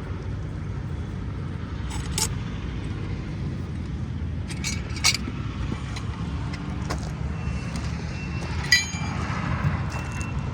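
Steady low rumble of a vehicle engine running, with scattered sharp metallic clicks and clanks. Faint high beeping joins in past the halfway point.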